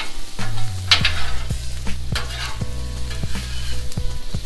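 Shrimp, sausage, onions and peppers sizzling on a hot Blackstone flat-top griddle while two metal spatulas repeatedly scrape and clack across the steel surface to toss them.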